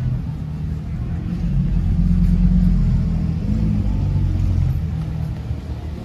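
A motor vehicle's engine running close by, a low rumble that swells to its loudest about two to three seconds in and then eases off.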